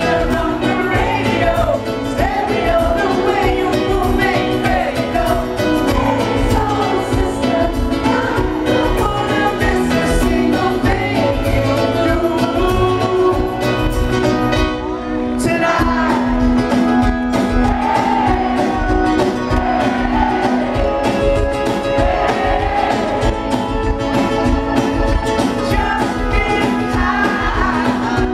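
A pop-rock band playing live, a male lead singer over guitar, keyboard and a steady drum beat, heard from the crowd. The band briefly drops back about halfway through.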